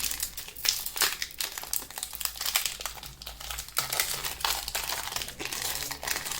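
Foil booster-pack wrapper of a Pokémon trading card pack crinkling and tearing as it is opened by hand, an irregular run of crackles.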